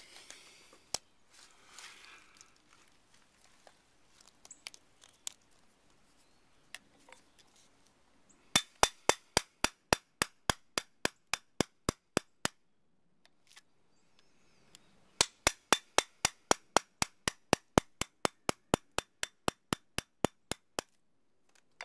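Hammer striking a metal chisel in quick, even blows, about five a second, in two runs with a pause between, driving the chisel through a small laminated transformer to push out its copper winding.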